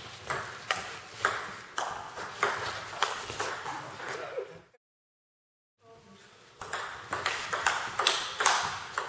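Table tennis ball clicking back and forth in a rally, sharp ticks off the bats and table about twice a second. The sound drops out completely for about a second in the middle, then the rally clicks resume.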